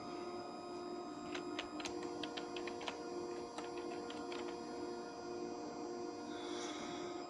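A run of about ten quick, light clicks starting about a second in and lasting some three seconds, over a steady electrical hum with several faint high tones.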